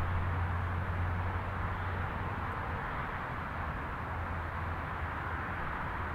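Aircraft turbine engines running in the distance: a steady low rumble under an even hiss.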